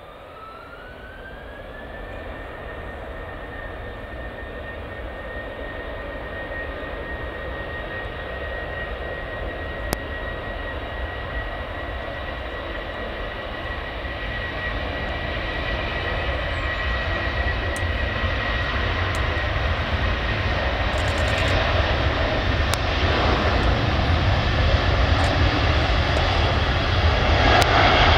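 Airbus A330 twin jet engines spooling up for takeoff: a whine rises in pitch over the first two seconds and then holds steady. The engine noise grows steadily louder as the airliner starts its takeoff roll and comes closer.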